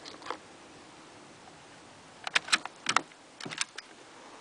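Bolt of a Davey Crickett single-shot .22 bolt-action rifle being worked while it is loaded: quick sharp metallic clicks in three short clusters, starting a little past halfway, as the bolt is closed and locked down.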